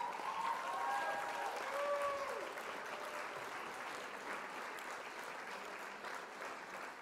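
Crowd applause, with a few short pitched cries from the crowd in the first couple of seconds, slowly fading away.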